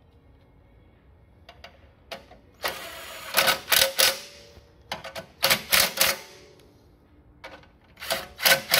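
Ryobi cordless impact driver run in three short bursts of rapid hammering as it drives a bolt on the compressor's Honda engine.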